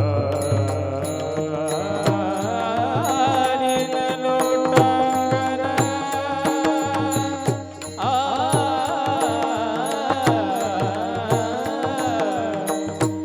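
Devotional kirtan music: a male singer's wordless, ornamented melodic phrase with wavering vibrato, restarting on a new phrase about eight seconds in, over a steady held drone with regular drum and small-cymbal strokes keeping the beat.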